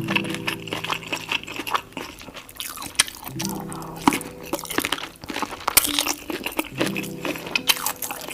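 Close-miked eating of a seafood boil: crunching bites and chewing, with many sharp crackles and smacks. A low held tone comes in three times underneath.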